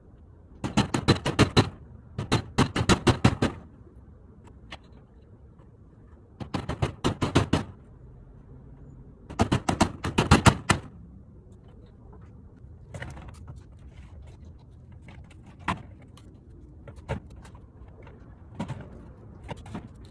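A cordless power driver sinking screws into the timber roof frame: four short bursts of rapid rattling clicks in the first eleven seconds, then scattered lighter clicks and a few single knocks.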